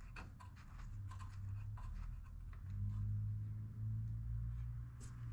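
Light handling of the engine's dipstick as the oil level is checked: small clicks and rubbing, with a sharper click near the end, over a steady low hum.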